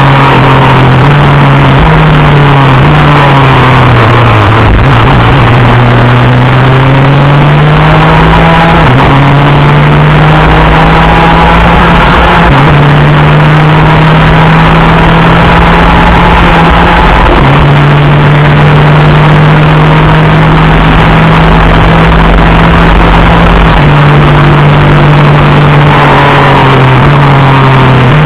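Superkart's two-stroke racing engine running hard, heard on board: its pitch climbs and then drops sharply several times as it shifts up through the gears. About a second in, the pitch falls away for a few seconds before climbing again.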